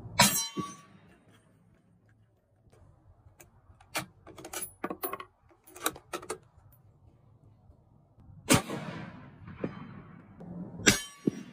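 Scoped Mosin–Nagant bolt-action rifle firing: a loud shot just after the start, a run of quick metallic clicks from about four to six seconds in as the bolt is worked and a round is chambered, then two more loud reports, about eight and a half seconds in and near the end.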